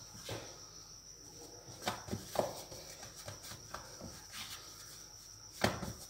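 Hands patting and pressing a ball of naan dough flat on a floured marble countertop: scattered soft pats and taps, the loudest about five and a half seconds in.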